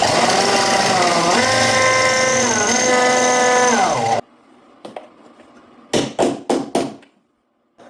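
Power drill running for about four seconds, its pitch dipping and rising as the bit bites, drilling out the old rivet that holds the hood latch strap; it cuts off suddenly. A quick run of four or five sharp clicks follows near the end.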